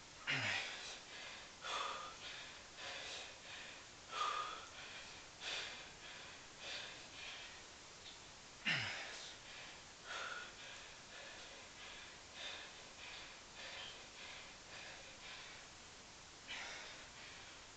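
Hard, rhythmic breathing of a man exerting himself through a long set of pistol squats, about one breath a second. Twice, near the start and about halfway through, an exhale is voiced and falls in pitch.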